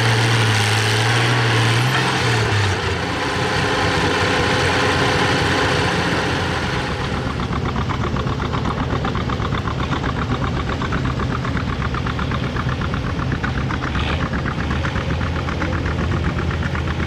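Oliver tractor engine running hard under load for the first couple of seconds, its pitch then dropping away. After that an Oliver 77's six-cylinder engine runs at the pulling sled with an even, rapid beat.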